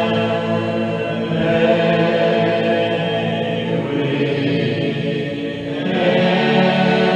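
Congregation singing a hymn a cappella in slow unison, many voices holding each note for a second or more before moving slowly to the next.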